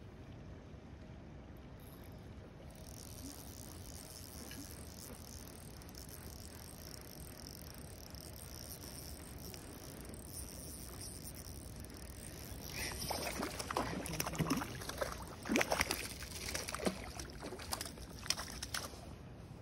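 A hooked trout splashing at the water surface as it is brought into a landing net, a run of sharp splashes starting about two-thirds of the way in. Before that only a low steady background noise.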